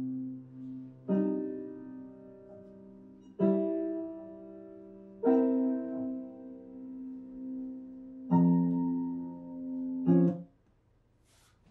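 Piano played slowly in held chords, five chords struck one after another, each left to ring out, with the playing stopping suddenly near the end.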